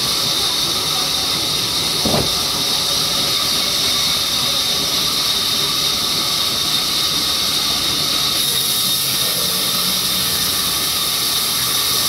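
Large vertical band saw running with a steady, high hiss as it cuts a mahogany log. One short thump about two seconds in.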